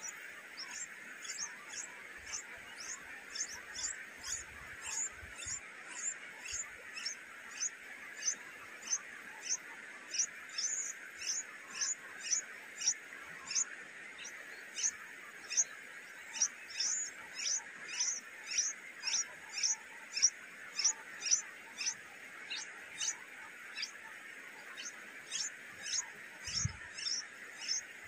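Nestling songbirds begging with short, high, thin chirps, about two a second, over a steady high hiss.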